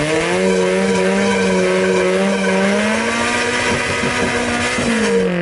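Toyota Corolla AE86 engine revving hard in first gear while a bare aluminum wheel rim with no tire spins in place on the asphalt, grinding and scraping the metal away into shavings. The engine note rises about half a second in, holds high and steady, and drops near the end.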